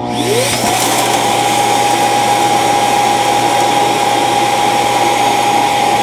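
Shark Detect Pro auto-empty base's suction motor switching on, with a whine that rises in pitch over the first second and then holds as a steady whine over rushing air. The base is sucking the dirt, cereal and hair out of the docked stick vacuum's dust cup.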